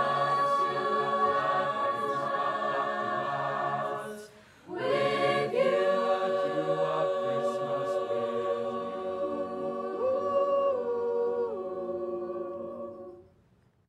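A high school show choir singing the closing chords of a doo-wop Christmas song: one long held chord, a short break about four seconds in, then a second long held chord with one voice moving over it, dying away near the end.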